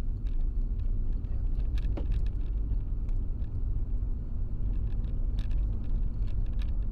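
Steady low rumble of a car driving on a wet road, heard from inside the cabin by a dashcam, with a faint steady hum and a few scattered light ticks.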